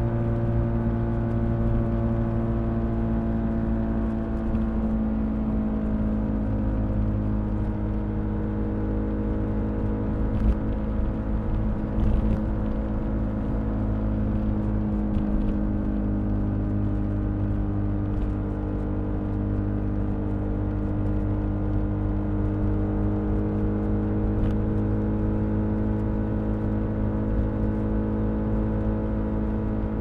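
BMW R1250RS's 1254 cc boxer twin running on the move at a steady engine note, its pitch easing slightly and then creeping back up, with wind and road rumble. It is recorded from inside the rear seat bag. There are a couple of brief knocks about ten and twelve seconds in.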